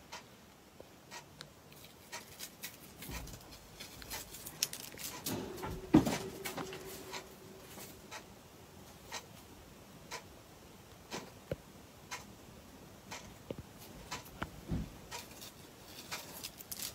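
Scattered light clicks and taps in a small room, with a louder knock about six seconds in and a low thump near the end.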